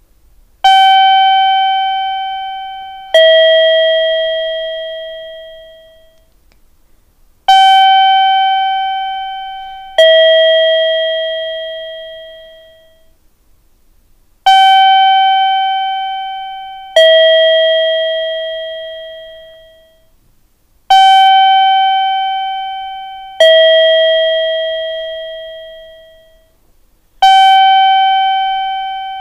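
Two-note electronic 'ding-dong' chime of a station ticket-gate guide bell, the kind that marks the gates for visually impaired passengers. A higher note is followed about two and a half seconds later by a lower one, each ringing and slowly fading, and the pair repeats about every six and a half seconds, four times over, with the higher note sounding once more near the end.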